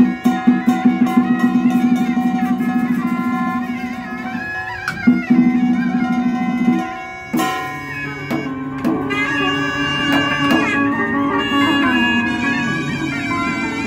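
Vietnamese traditional Cao Đài ritual ensemble music: plucked zither and lute in quick repeated strokes over small drums and gong, with a two-string fiddle. About halfway through, the texture changes with a struck accent and a fuller, wavering melody line.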